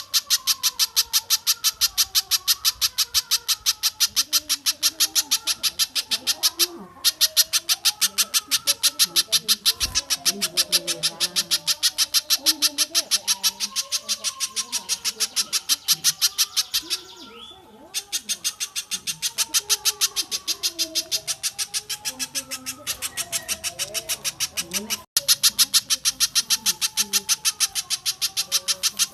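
Recorded song of pijantung (spiderhunter) paired with tengkek buto calls: a fast, even train of sharp high chips, about seven a second, over softer wavering calls lower down. The chipping breaks off briefly three times: about a third of the way in, for about a second past halfway, and again a few seconds before the end.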